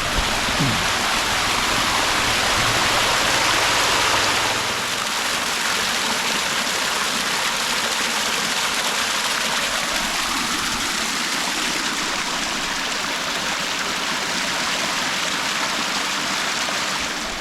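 Rushing water of a creek and waterfall: a steady, even wash of noise, a little louder for the first few seconds.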